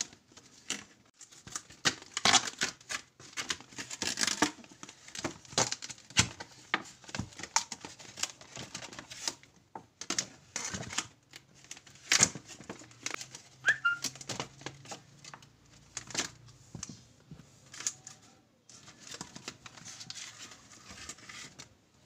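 Packaging of a set of snap ring pliers being unwrapped and handled: irregular crinkling, rustling and tearing, with many sharp clicks and taps as the pliers and box are handled.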